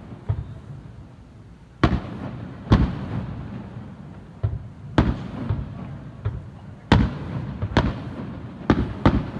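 Aerial firework shells bursting, about eight sharp booms spaced roughly a second apart, the first nearly two seconds in, each followed by a rumbling echo.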